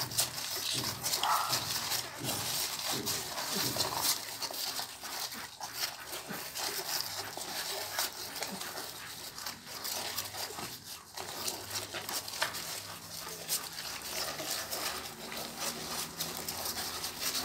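Newborn pitbull puppies nursing, with small wet clicking suckling sounds throughout and a few faint squeaks and whimpers, mostly in the first few seconds.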